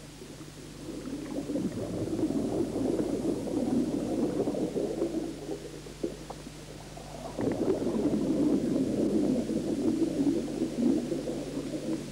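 A scuba diver's exhaled air bubbling and gurgling out of the regulator underwater, in two long breaths: one from about a second in, the next from about seven seconds in. A faint steady low hum runs beneath.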